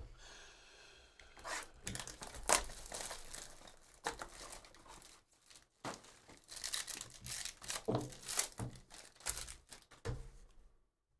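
A foil trading-card pack being torn open and its wrapper crinkled. Irregular sharp crackles start about a second and a half in and stop near the end.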